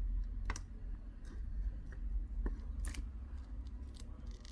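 A few sharp, scattered clicks and taps of small tools and parts being handled while a smartphone is taken apart, over a steady low hum.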